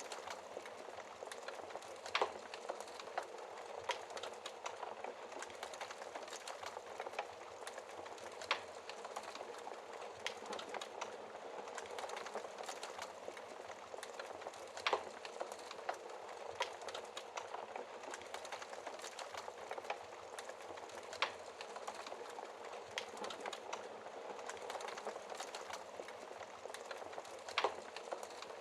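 Wood fire burning in a fireplace: a steady hiss with fine crackling, and a sharper pop about every six seconds.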